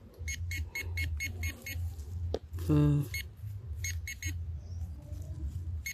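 Metal detector beeping in quick runs of short, high beeps, about five a second with short gaps, signalling a metal target under the coil. A low rumble runs underneath, and a brief voice sounds near the middle.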